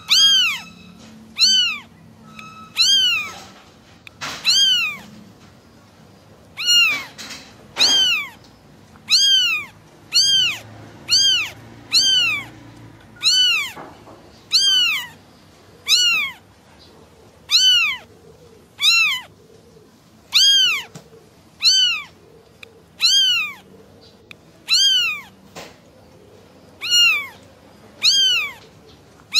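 A kitten meowing over and over for its mother: high-pitched calls that rise and fall, all alike, repeated a little more than a second apart.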